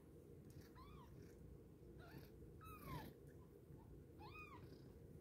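Faint, high-pitched mewing from week-old kittens: four short calls, each rising then falling in pitch.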